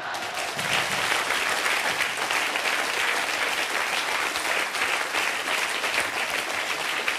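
Studio audience applauding, a dense, steady clapping that starts right at the beginning and holds at an even level.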